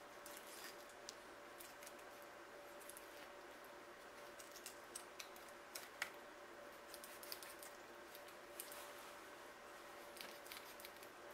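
Faint scattered clicks and scrapes of a small knife cutting meat from a skinned squirrel carcass on a wooden cutting board, with a sharper click about six seconds in, over a faint steady hum.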